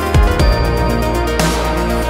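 Background music with held chords, two deep bass drum hits near the start and a cymbal-like crash partway through.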